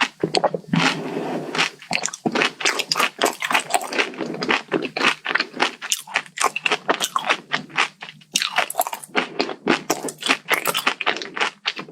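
Close-miked mouth chewing a crunchy kadaif-pastry chocolate dessert: a dense, irregular run of crisp crunches.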